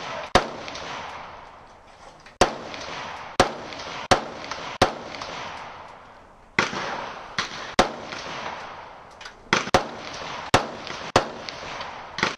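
Gunshots at a shooting range, about fifteen sharp reports fired at an irregular pace, each trailing off in a short echo, with a lull of under two seconds near the middle.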